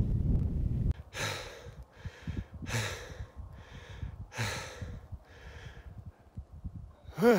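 Wind rumbling on the microphone for about the first second, then a man breathing hard and out of breath after wading through deep snow: heavy exhales about every second and a half with quieter breaths between. Near the end comes a louder voiced sigh.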